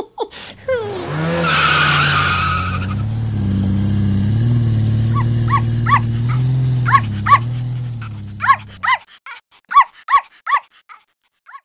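Cartoon sound effects: a tyre screech, then a vehicle engine running with its pitch wavering up and down, fading out about nine seconds in. Over the engine and after it, a dog barks in short sharp yaps, about ten times.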